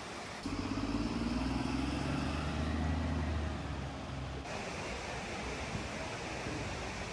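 A bus's engine idling close by, a low steady rumble, for about four seconds, then giving way suddenly to a steady even hiss of outdoor noise.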